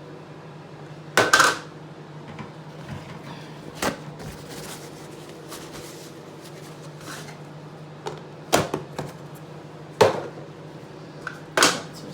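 A few sharp knocks and clatters of kitchen things being handled and set down on a counter, about five in all, over the steady low hum of a running microwave oven.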